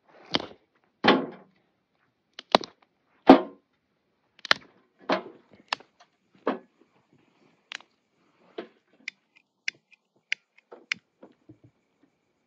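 Dry sticks and twigs being snapped by hand and loaded into a portable metal wood stove: a string of sharp, separate cracks and knocks, the loudest about three seconds in.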